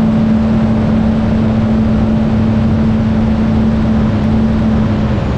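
Supercharged Sea-Doo RXP-X jet ski with a Stage 2 tune running at full throttle on a top-speed run, heard from on board. A steady high engine note holds until near the end, then drops away, over a constant rush of water and air.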